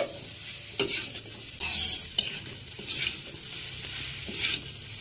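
Metal spatula stirring and scraping fried tiwul with water spinach and egg around a wok, with repeated scrape strokes over a steady frying sizzle.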